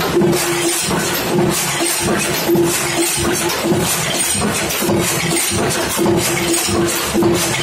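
Wire-fed bolt heading machine running, with a rapid rhythmic metallic clatter and a steady hum, as formed carriage bolt blanks drop and clink into a steel bowl.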